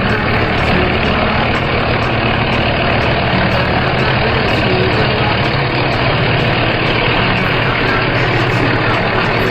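A large engine running steadily at a constant speed, the low drone of heavy machinery.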